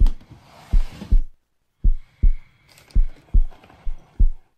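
Heartbeat sound effect: deep double thumps, lub-dub, repeating about once a second. A drawer is slid open under it in the first second.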